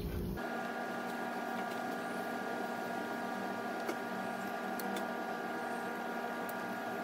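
A steady hum with several fixed pitches over a soft hiss, with a few faint ticks, as batter cooks in a hot oiled nonstick pan.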